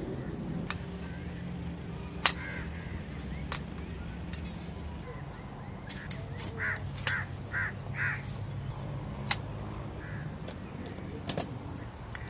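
Sharp clicks and taps of metal tent poles being handled and fitted into the tent, with a few short bird calls in the middle and a steady low hum underneath.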